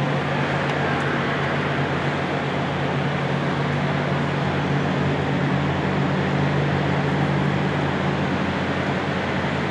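Steady low mechanical hum under an even hiss of noise, without change in pitch or level.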